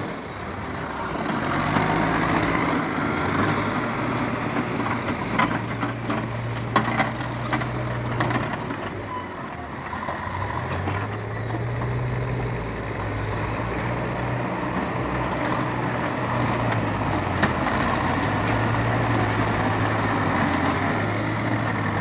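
Backhoe loaders' diesel engines running under load while digging and pushing soil, the engine note rising and falling as they work. A few sharp knocks come about six to eight seconds in.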